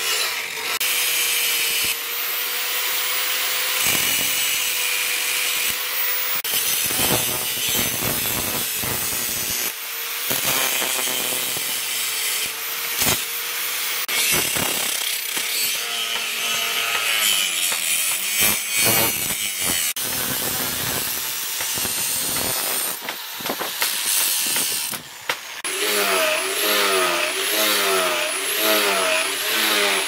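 Electric angle grinder with an abrasive disc grinding a steel machete blade cut from a plough disc: a steady motor whine under a loud grinding rasp that swells and eases as the disc is pressed. Near the end the motor's pitch rises and falls over and over as the grinder is rocked along the blade.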